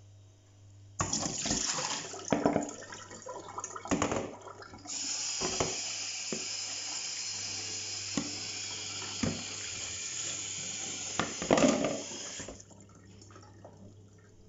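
Kitchen tap running into a stainless steel sink, with water splashing through soaked rice vermicelli in a metal colander and several sharp knocks of metal on metal. The tap runs steadily from about five seconds in and stops near the end.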